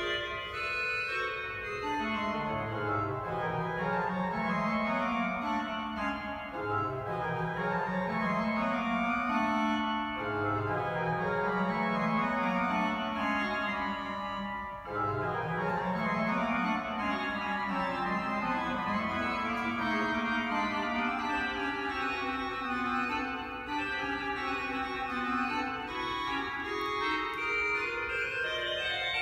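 Pipe organ playing, with a run of bass notes rising from low up into the middle range about every four seconds, four times over, under held chords. Later a long sustained passage builds with a line climbing near the end.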